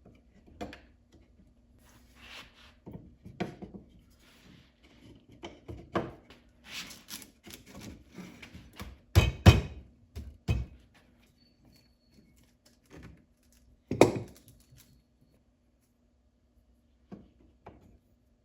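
Wooden pieces knocked and set down on a workbench amid irregular scraping and handling noise. The heaviest thunks come in a cluster about nine to ten seconds in, with another sharp knock about fourteen seconds in.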